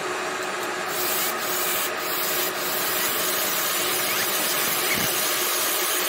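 Laser marking machine engraving a logo into a rifle scope's metal tube: a steady hiss with faint steady tones under it.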